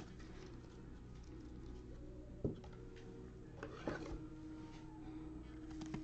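A trading card and a clear plastic card holder being handled in gloved hands: faint rubbing and sliding, with a sharp plastic click about two and a half seconds in and a lighter knock about four seconds in.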